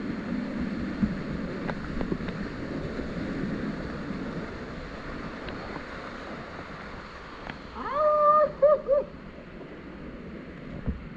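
Whitewater rapids rushing steadily around a kayak. About eight seconds in, a person gives a high-pitched shout, broken into a few short calls.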